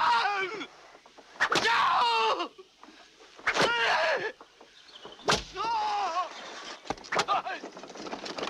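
A man bent over a log being flogged: a sharp crack of each blow, followed by his long cry of pain with falling pitch, about every two seconds.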